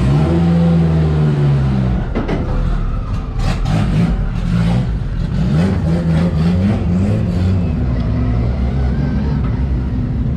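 Race car engine idling and being revved up and down in short, uneven blips.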